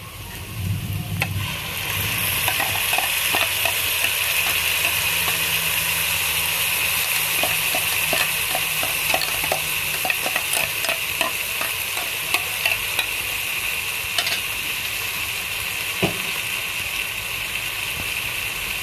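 Wet ground garlic, shallot, ginger and chilli paste frying in hot ghee in a pot: a steady, loud sizzling hiss with many quick little crackling pops, which rises sharply about two seconds in.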